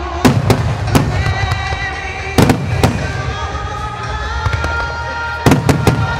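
Firework shells bursting in three clusters of two or three sharp booms each, over music with sustained tones playing underneath.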